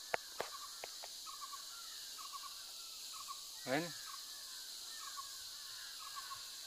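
A green leaf blown as a whistle gives one short squeal that falls steeply in pitch, about three and a half seconds in. Faint bird calls chirp in the background, with a few small clicks near the start.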